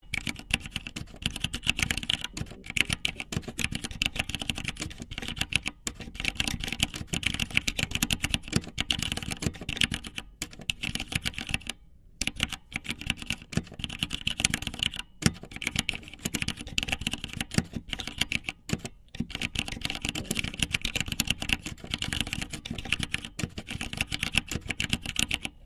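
Touch-typing on a computer keyboard: a steady run of rapid key clicks, broken by a few brief pauses, the longest about twelve seconds in.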